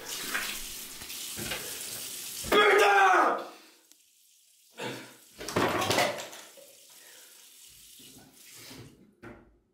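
Water running from a bathroom sink tap, cut by a short, loud cry from a person about two and a half seconds in. A few more bursts of noise follow around five to six seconds.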